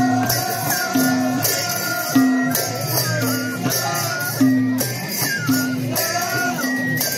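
Madal drums beating a steady folk-dance rhythm for a Nepali Bhailo dance, a low pitched drum stroke falling about once a second, with a melody line over the drumming.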